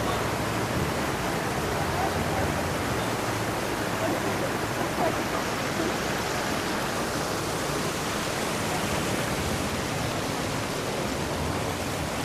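Steady rush of hot-spring water cascading down the Yubatake's falls into its steaming pool, with a crowd talking underneath.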